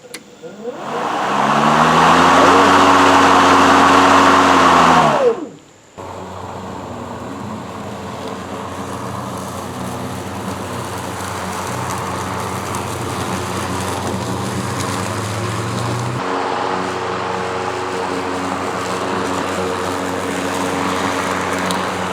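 Ryobi 40V cordless electric lawn mower's motor and blade spinning up with a rising hum, running for about four seconds, then winding down and stopping. It then runs again steadily to the end, its pitch shifting slightly about two-thirds of the way through.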